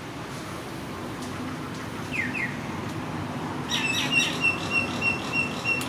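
A small bird chirping: two quick falling notes about two seconds in, then a rapid run of short, even, high notes, about five a second, for nearly two seconds near the end. A steady low background rumble runs under it.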